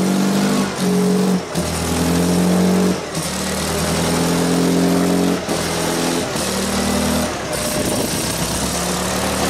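Volvo BM 642 wheel loader's diesel engine running cold after standing for months. Its revs shift up and down in steps, with brief dips every second or two. Near the end it turns rougher and less even.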